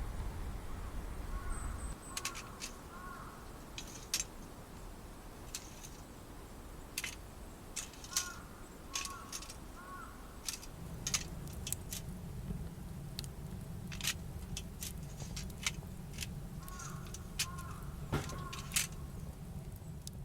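Scattered sharp clicks and light knocks of gear being handled. A bird calls in short repeated phrases three times, and a low rumble comes in about halfway.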